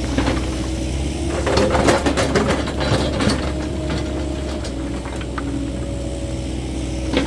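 Cat 308E2 mini excavator's diesel engine running steadily. A run of clanks and knocks comes from about a second and a half to three and a half seconds in, and a faint thin whine follows in the middle.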